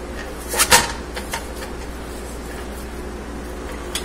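A spatula knocking and scraping against a stainless steel pot while chopping up a block of raw ground beef: two sharp knocks about half a second in, then a few lighter taps.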